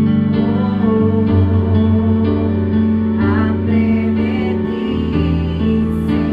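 A slow worship song: a backing track of sustained chords over a bass line that changes notes a few times, with a woman singing into a microphone over it.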